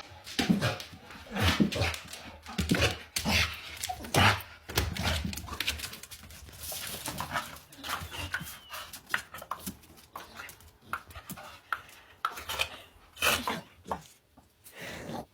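A dog panting and making small sounds, with irregular scuffling and knocks.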